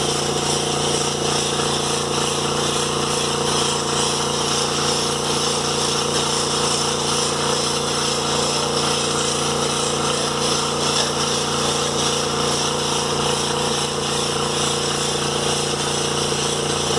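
Paint spray gun fed by an air compressor, spraying silver automotive paint: a steady motor hum under a constant hiss of air and paint.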